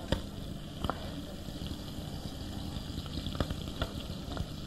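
Lamb sweetbreads frying in oil in a pan: a steady sizzle with a few sharp pops or spits now and then.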